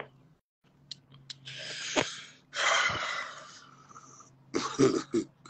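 A man breathing out heavily twice, long hissy exhales like sighs, with a small click between them and a faint steady hum underneath.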